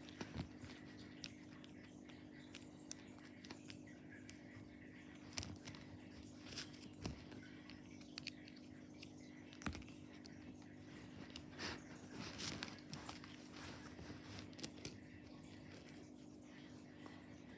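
Faint scattered clicks and short crinkles of a Kinder Joy egg's plastic capsule, toy pieces and wrapper being handled, busiest a little past the middle, over a steady low hum.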